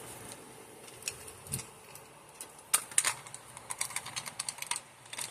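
Scattered light clicks and clacks of fire alarm pull stations being handled, their front covers being pushed shut, with a sharper click near the middle and a quick run of small clicks toward the end.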